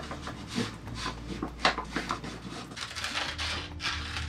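A sheet of paper rustling and crinkling as it is pressed against a wall and handled, then cut with scissors near the end.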